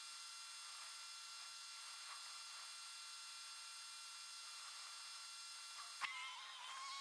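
Faint steady hum and hiss. About six seconds in comes a sharp click, and then a steady held tone begins.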